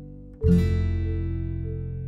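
Background music: an acoustic guitar strums a new chord about half a second in, which rings on and slowly fades.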